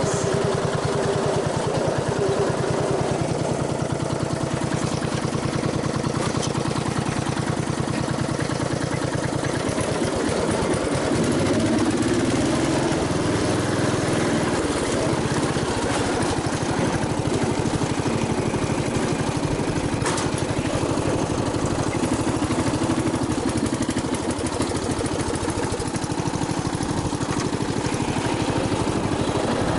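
MTD ride-on mower's engine running steadily while the mower is driven, its note shifting up and down between about ten and sixteen seconds in.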